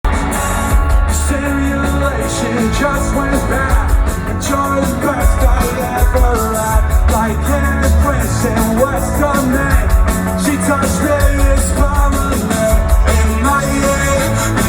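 Live pop-punk rock band playing loudly, with singing over a steady drum beat.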